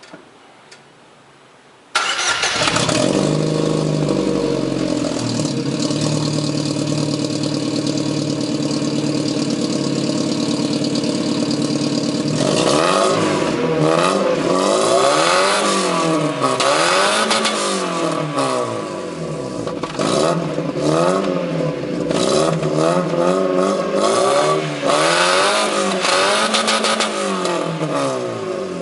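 Astra GSi engine through an aftermarket sport exhaust with a large tip. It starts about two seconds in and idles steadily. Past the halfway point it is revved over and over, the note rising and falling about every two seconds, loud.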